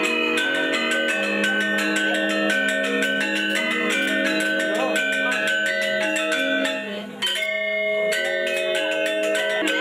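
Balinese gamelan music: bronze metallophones and gongs struck in fast, dense interlocking patterns over long ringing tones, with a brief drop about seven seconds in.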